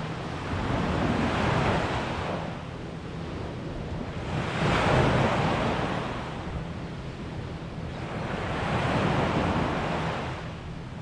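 Small sea waves breaking and washing up the shore. The surf swells and fades three times, about four seconds apart.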